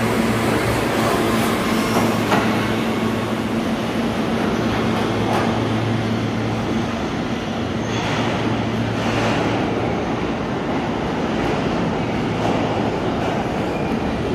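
New York City R160B subway train leaving the station, a steady loud rush of wheels on rail and running gear as it passes and pulls away into the tunnel, with a few sharp clacks over the rail joints.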